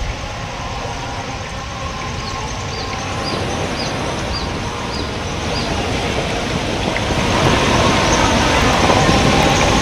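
Steady rush of a swollen, fast-flowing floodwater river, growing louder in the second half. About six short high chirps sound evenly spaced a few seconds in.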